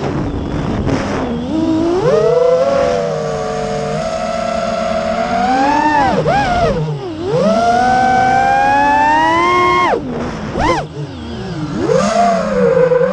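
5-inch FPV freestyle quadcopter's brushless motors and propellers whining, the pitch sweeping up and down with the throttle. The whine holds high and steady for stretches, drops sharply several times as the throttle is cut for flips and dives, and climbs again near the end.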